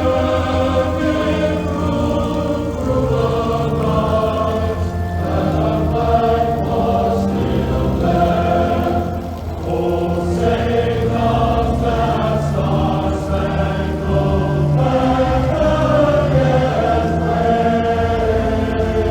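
Choral music: several voices singing long held notes over a steady low drone.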